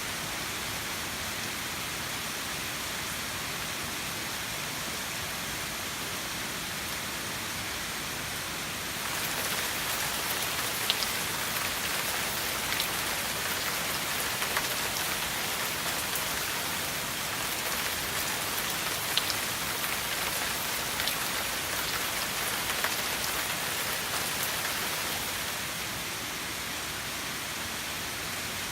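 Heavy rain pouring steadily. It grows heavier about a third of the way in, with a few sharp drip ticks, then eases a little near the end.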